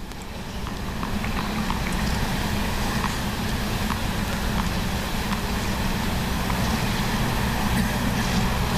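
Steady static noise with a low hum running under a TV sports broadcast, a fault in the recording. It grows louder over the first two seconds, then holds steady.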